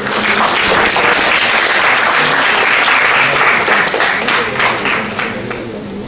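Audience applauding, starting abruptly and tapering off about five seconds in.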